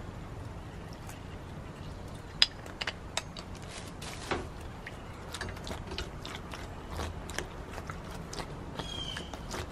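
Scattered plastic clicks and taps from a hand-held lime squeezer being worked over a split fish on a cutting board, squeezing lime juice onto it; the sharpest click comes about two and a half seconds in.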